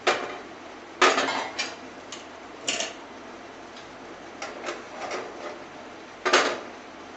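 Iron tawa knocking and scraping against the gas stove's grate as it is gripped by its handle and turned upside down over the burner: a handful of sharp clanks, the loudest about a second in and near the end, over a steady background hiss.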